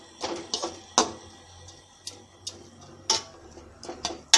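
A cooking spoon clinking against a metal pan of rice and water as it is stirred, in about eight sharp, irregularly spaced knocks.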